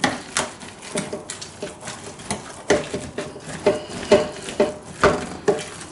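Potato masher working boiled potatoes with milk and butter in a pot, knocking against the pot about twice a second, each stroke with a short ring.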